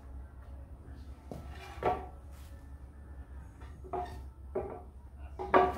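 Lengths of wooden lumber knocking and clattering as they are handled and set down, several separate knocks with a short ringing tail, the last near the end the loudest.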